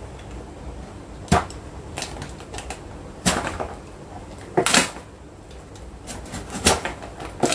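Box cutter blade cutting through packaging tape and cardboard, with four sharp clicks and scrapes spaced a second or two apart.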